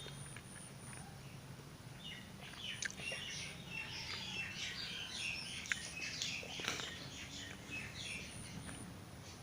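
Birds chirping busily in quick short calls, starting about two seconds in and going on to near the end, with a few sharp clicks among them.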